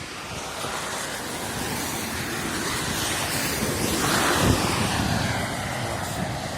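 A vehicle passing on a rain-wet road: a hiss of tyres that swells to a peak about four and a half seconds in, with a low thump at its loudest, then fades.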